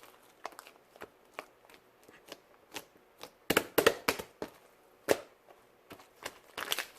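Green fluffy slime being squished and stretched by hand, making irregular sticky crackles and small air-bubble pops, with a louder run of pops about halfway through and again near the end.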